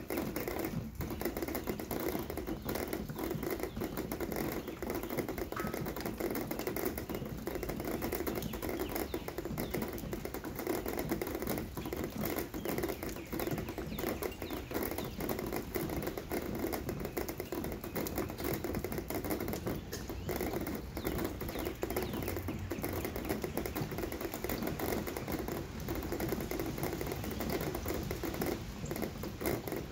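Steady rain, with a dense, irregular ticking of drops striking a hard surface.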